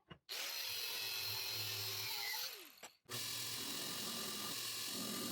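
Power tool working on steel, a loud steady grinding noise. It cuts out with a falling pitch about two and a half seconds in, then starts again a moment later.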